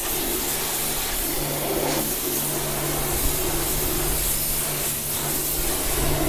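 Pressure washer spraying a jet of water into a car's rear wheel arch and tyre: a steady hiss of spray over the low hum of the washer's pump motor.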